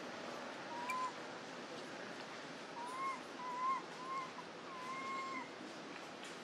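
Short, arched whistle-like animal calls: one about a second in, then four in quick succession from about three seconds on, the last one longer. A steady hiss lies underneath.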